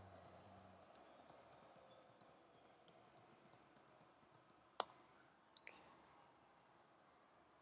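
Faint computer keyboard typing: a quick run of light key clicks for about four and a half seconds, then one sharper click and a softer one about a second later.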